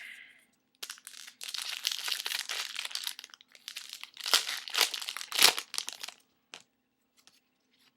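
A trading-card pack wrapper being torn open and crinkled by hand. The crinkling starts about a second in, is loudest around five seconds and stops about a second before the end.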